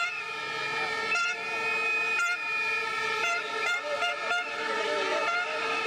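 Protest crowd blowing whistles and horns: several shrill tones held steadily at once, with faint crowd noise beneath.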